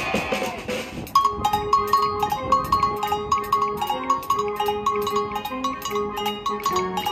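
School band's mallet percussion, a xylophone-type keyboard instrument, starts a quick, bright repeated-note pattern about a second in, with light percussion ticks keeping an even beat.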